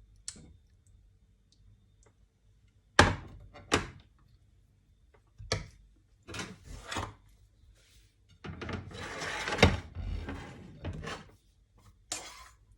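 Kitchen utensils and dishes being handled: several separate knocks, then scraping, the longest lasting about three seconds with a sharp knock in the middle of it.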